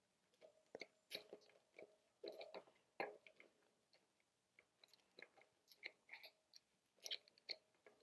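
Faint, irregular small metal clicks and ticks from a multi-tool chain breaker being turned with a wrench against a 7-speed bicycle chain link, as its push rod is driven against the chain pin.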